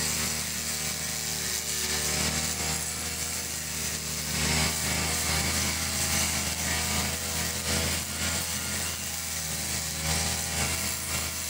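An old backpack brush cutter's two-stroke engine running steadily at working speed while its spinning blade mows grass.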